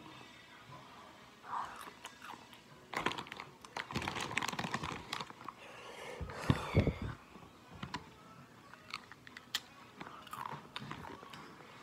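Doritos tortilla chips crunched and chewed close to the microphone, with sharp crackles that are thickest about three to seven seconds in, mixed with the crinkle of the foil chip bag as a hand reaches in.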